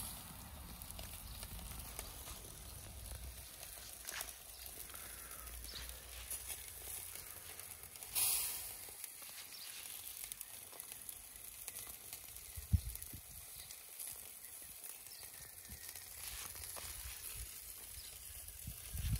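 Sausages and chicken breasts sizzling quietly on the grill of a Valiant portable charcoal barbecue, a steady faint hiss. A brief louder hiss about eight seconds in, and a single sharp knock about two thirds of the way through.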